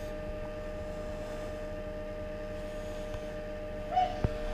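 Egg incubator running with a steady hum made of several fixed tones. Near the end there is a brief short sound, then a single click.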